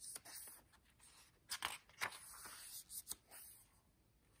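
Faint rustling and a few soft taps of heavy paper pages being turned and handled in a handmade journal.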